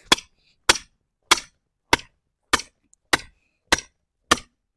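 A hammer driving a wooden stake into the ground: eight sharp, even blows about 0.6 seconds apart.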